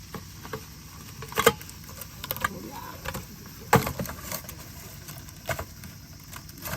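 Scattered clinks and knocks of handled camp cooking utensils and dishes, with two sharper clacks about a second and a half and nearly four seconds in.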